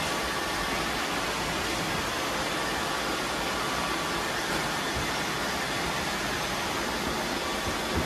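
About a dozen robot vacuums running at once: a steady whirring hiss of many motors and brushes, with a faint steady whine through it.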